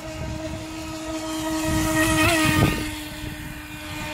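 HobbyKing FT009 RC racing boat's brushless electric motor running with a steady high whine over the rush of water. It grows louder toward the middle, then falls away again.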